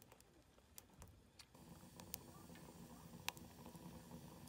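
Quiet wood fire burning in a steel rocket stove's feed chute, with a few sharp crackles from the split firewood, the loudest about three seconds in.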